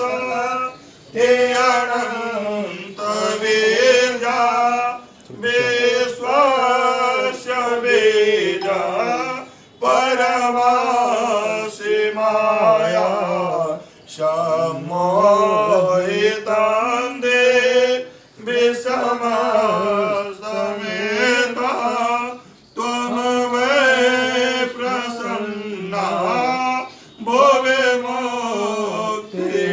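A man chanting Sanskrit puja mantras in a sung melody, in phrases of about four seconds with short breaks between.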